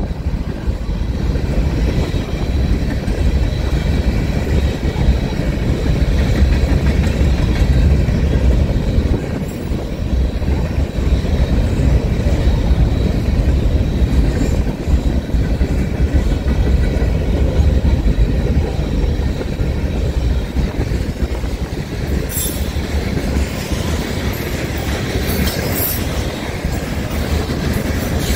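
Freight train of gondolas and covered hopper cars rolling past with a steady rumble and clatter of steel wheels on the rails. Sharper metallic clanks and squeal come in over the last several seconds.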